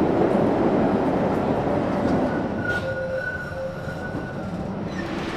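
Poznań tram running on its track, heard from inside the passenger car: a rumble of wheels and motors that eases off in the second half. A steady high squeal sounds for about two seconds in the middle.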